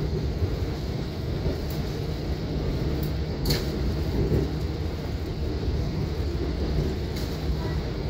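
Long Island Rail Road train in motion, heard from on board: a steady low rumble of wheels on track, with one sharp click about three and a half seconds in.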